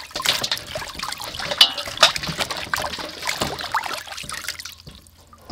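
Water splashing and dripping in a stainless steel basin as large freshwater prawns are rinsed by hand, lifted and swished so water pours off them. The splashing thins out about a second before the end.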